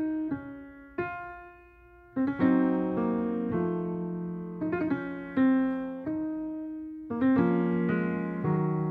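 Yamaha grand piano played solo: the opening bars of a slow piece, notes and chords struck and left to ring and fade. The sound dies down to a quiet moment about two seconds in, then the playing swells again with fuller chords.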